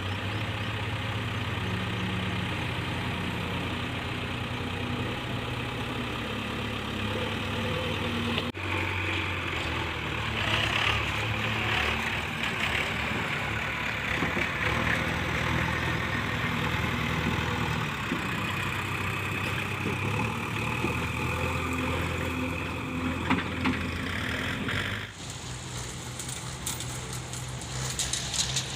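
Diesel engine of a JCB 3DX backhoe loader running at work, its note shifting up and down. The sound changes abruptly about eight seconds in and again near the end.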